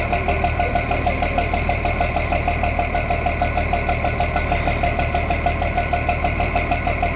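Boat engine running steadily with a fast, even pulsing beat over a low hum.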